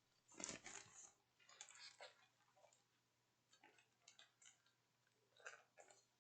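Faint rustling and crackling of large paper posters being handled, in four or five short bouts with quiet gaps between them.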